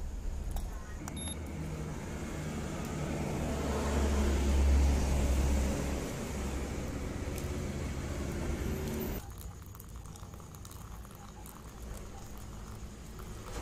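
Road traffic passing close by: a vehicle's low rumble and road noise swell to a peak about five seconds in, then cut off suddenly about nine seconds in, leaving a quieter steady background.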